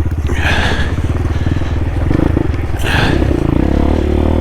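CSC TT250 dual-sport motorcycle's single-cylinder engine running steadily at low speed while being ridden, with two short hissing bursts about half a second in and near three seconds.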